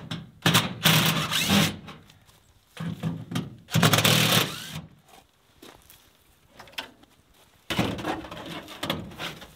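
Cordless drill running in bursts against a steel wall panel, two runs of about two seconds each, the motor's hum under the bit's hiss. A third burst of noise comes near the end.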